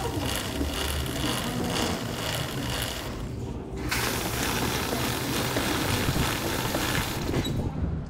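Aerosol Motorex chain lube hissing as it is sprayed onto a moving motorcycle O-ring chain, over the chain's light mechanical running. The spray breaks off for under a second about three seconds in, then resumes and stops near the end.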